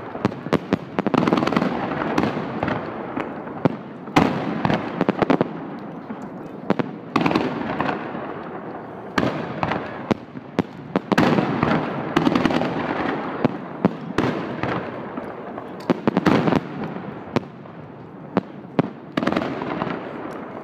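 Aerial fireworks bursting overhead: loud single bangs and quick runs of sharp reports in several volleys, over a continuous rumble of echoing explosions between them.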